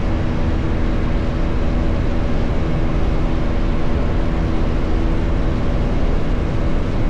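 Bajaj Pulsar NS400Z single-cylinder engine running at steady revs on the move, with a heavy low rush of wind and road noise over it.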